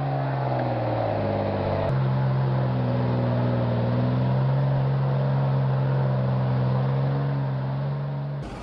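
Truck engine running with a steady drone. A brief click comes about two seconds in, and the sound changes abruptly near the end.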